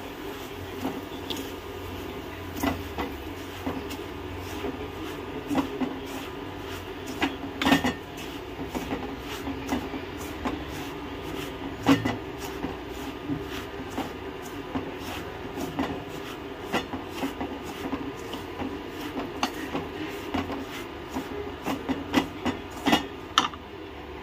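Wooden spatula scraping and knocking against an aluminium kadai as dry semolina is stirred and roasted, with irregular clicks and scrapes, a few sharper knocks, over a steady low hum.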